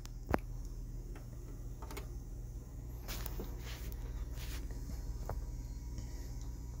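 Yamaha PF-1000 turntable running with its platter spinning: a steady low hum with a few scattered sharp clicks and ticks, the loudest click just after the start. No music is heard.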